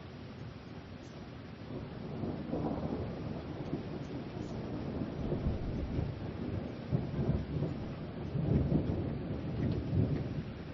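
Steady rain with thunder rumbling, the rumble swelling about two seconds in and loudest in several rolls near the end.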